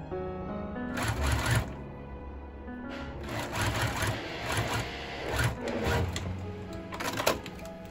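Juki SPUR 30 DX sewing machine stitching in short runs: a brief burst about a second in, a longer pulsing run of about three seconds from around three seconds in, and a short burst near the end.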